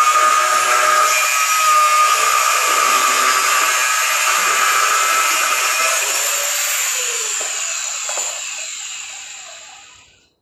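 Angle grinder grinding steel with a steady whine, then switched off; its pitch falls as the disc spins down and the sound dies away just before the end.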